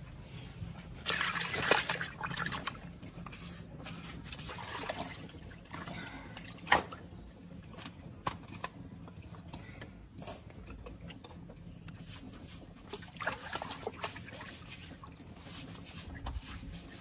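Wet cloth being rubbed and scrubbed by hand on a soapy concrete floor, with water splashing and dripping in irregular bursts. A single sharp click comes about halfway through.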